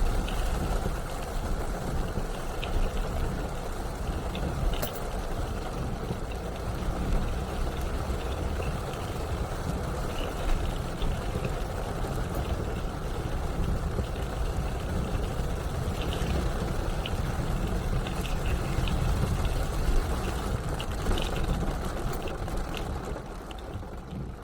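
A car driving in rain: a steady low rumble of road and engine noise under a hiss of rain and spray, with scattered light ticks throughout, dropping away near the end.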